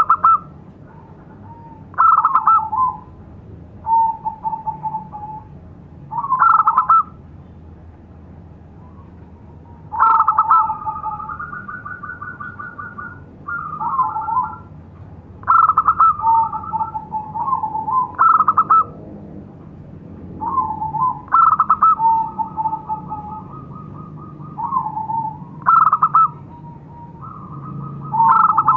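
Caged lure zebra dove (perkutut) singing its cooing call: repeated phrases of rapid rolling coo notes every few seconds, a few drawn out into longer trilled notes lasting two or three seconds.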